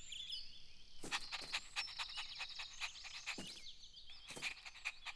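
Cartoon birdsong ambience of light, high chirps, joined about a second in by a cartoon puppy's quick, irregular panting breaths that stop near the end.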